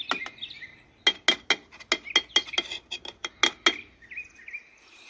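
A quick, irregular run of about a dozen sharp, clinking clicks lasting a little under three seconds, over birds chirping.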